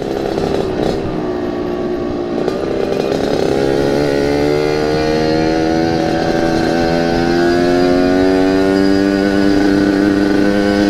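Yamaha RX-King 135cc single-cylinder two-stroke engine with an aftermarket local exhaust, under way: its pitch drops briefly about two seconds in, then climbs slowly and steadily as the bike accelerates.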